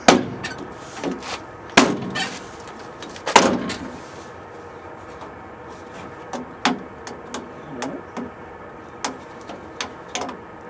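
Sharp knocks and clicks as a door-panel backer board is pressed against a pickup truck's door and its plastic retaining clips are pushed into the door's holes. Three loud knocks come in the first few seconds, then several lighter clicks.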